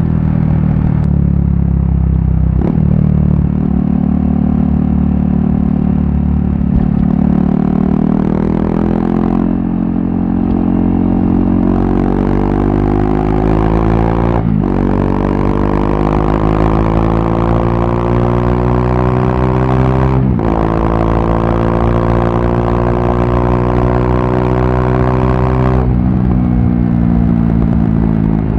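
KTM RC 390's single-cylinder engine through a barrel exhaust with the dB killer removed, accelerating through the gears on the move. The pitch climbs steadily and drops sharply at each upshift, four shifts in all.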